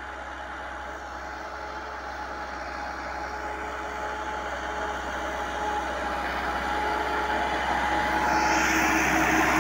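Massey Ferguson 385 tractor's four-cylinder diesel engine running steadily under load while pulling a tine cultivator through ploughed soil. It grows steadily louder as the tractor comes closer.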